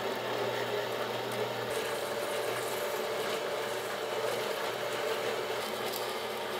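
Horizontal metal-cutting bandsaw running steadily as its blade cuts through the sprue of a bronze casting.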